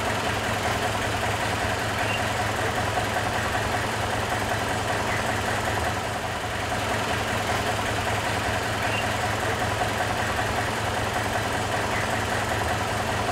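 A steady engine running at idle: an even, unchanging low hum.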